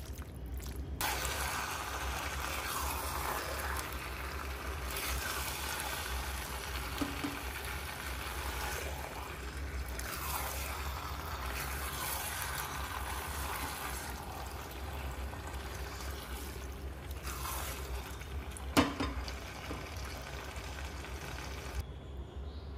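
Bow-tie pasta in a thick creamy tomato sauce being stirred and turned with a spatula in a nonstick pan: a steady wet, squelching noise with a low hum under it, and one sharp knock of the spatula against the pan near the end.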